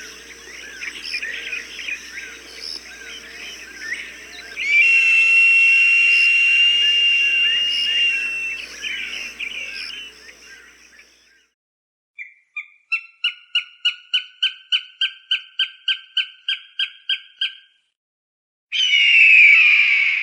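Recorded hawk calls. Over dense chirping, a long held whistle plays for a few seconds. After a short pause comes a quick run of about twenty sharp repeated calls, roughly four a second, and near the end a loud falling scream.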